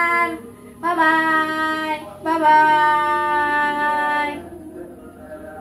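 A high singing voice holding long, steady notes: the end of one note, then two more, the last about two seconds long. The singing stops about four seconds in.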